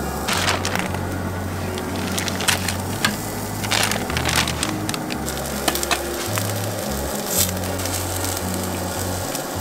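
Background music with a bass line stepping between low notes, over sharp crackles and crinkles from a plastic bag of meat being handled and steak kebabs sizzling on a butane tabletop grill.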